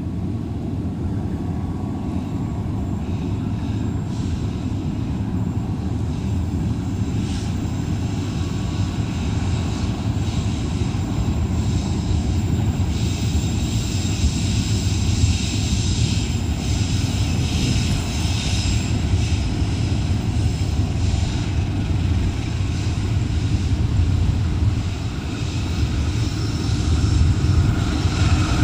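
Diesel locomotive approaching slowly around a sharp curve, its engine a steady low drone that grows louder near the end as it nears.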